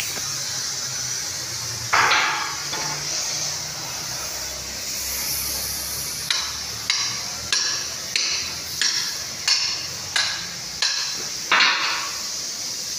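Hammer blows: a single strike about two seconds in, then a steady run of about nine strikes, roughly three every two seconds, the last the loudest. A steady hiss runs underneath.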